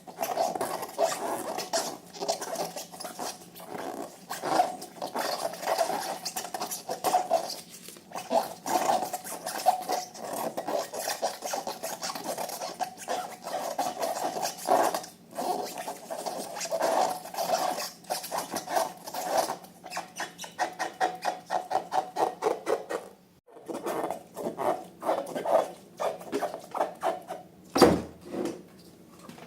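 Slime being squeezed and kneaded by hand: a fast, continuous run of sticky clicks and squelches, with a short break about three quarters of the way through and one louder snap near the end.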